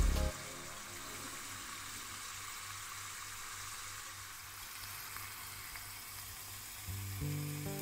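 Skewered potato ribbons deep-frying in a saucepan of hot oil: a steady sizzle. Background music stops just after the start and comes back about 7 seconds in.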